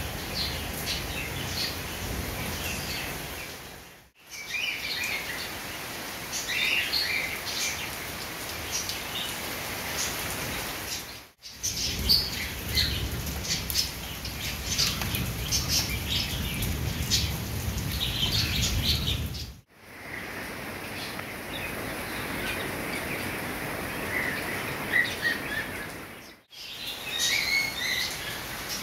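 Steady rain falling on paving, leaves and a metal gate, with birds chirping over it. The sound drops out for a moment four times, where shots are joined.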